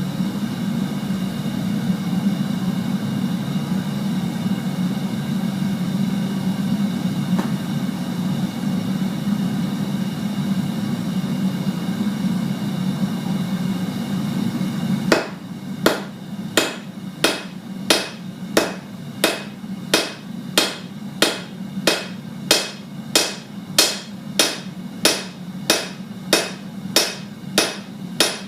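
Propane forge burner running steadily for about fifteen seconds. Then a hand hammer starts striking hot steel on the anvil, about two ringing blows a second: full-face blows flattening a section of a J-hook blank.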